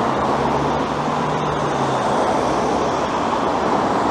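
Road traffic on a busy city street: a steady rush of passing cars, with a low engine hum in the first couple of seconds.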